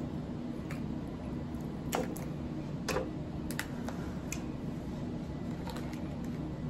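Scattered light clicks and ticks of someone eating close to the microphone, the two loudest about two and three seconds in, over a steady low hum.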